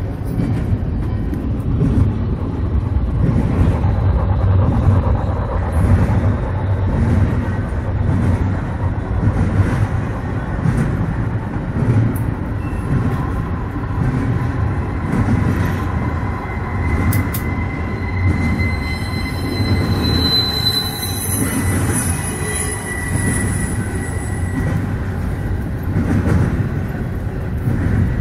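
Model trains running on a layout: a steady rumble of wheels and motors on the track, with a thin high squeal for several seconds in the second half.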